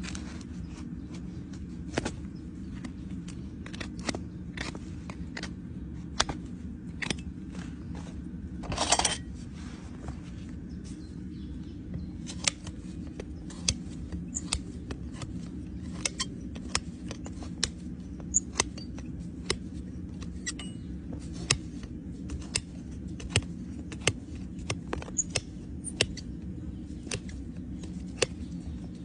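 A farrier's metal hand tools clicking and snipping at the nails of a freshly nailed horseshoe on the hoof: sharp, irregular clicks, with a short cluster about nine seconds in, over a steady low hum.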